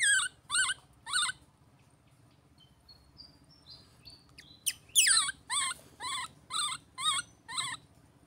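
Baby monkey crying: short, high-pitched, wavering calls, three in a quick run, then after a pause a string of about seven more, roughly three a second.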